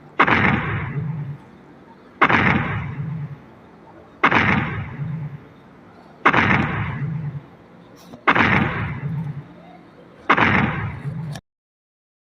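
Godzilla sound effect: a sudden heavy boom that dies away over about a second, repeated six times about every two seconds. It stops near the end.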